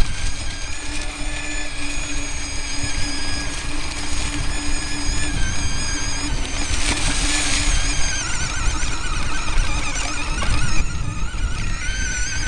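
Electric drive motor whining as the vehicle drives over rough grass and dirt, its high whine tones wavering in pitch with speed, over a steady rumble of the wheels on the uneven ground, with a louder rush of noise about seven seconds in.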